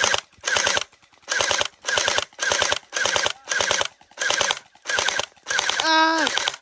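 Gel blaster firing in quick repeated bursts, a little under two a second, each a rapid rattle of shots. A longer burst near the end whines down in pitch as it stops.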